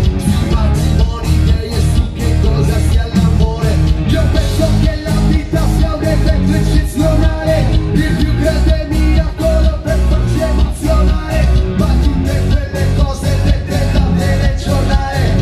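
Live band playing loud pop-rock music through a PA system: drums and electric bass driving a steady beat, with guitar above.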